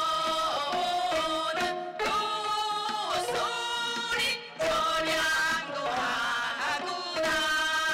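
Several women singing a Korean folk song in unison while playing gayageum, a gayageum byeongchang, with long sliding vocal notes over plucked zither strings and drum accompaniment.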